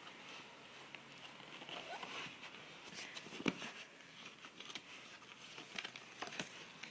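Faint rustling with a few scattered small clicks and taps as a gift package is handled and pulled at.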